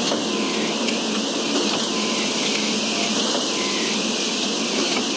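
Concrete pump running with a steady, unbroken mechanical noise.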